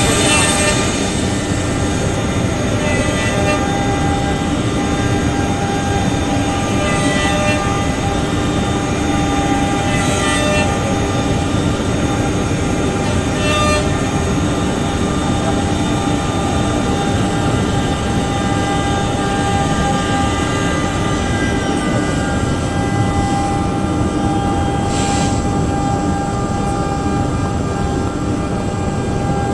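CNC router running steadily, its spindle and motors giving several steady whining tones over a constant mechanical noise, with short hissing bursts every few seconds.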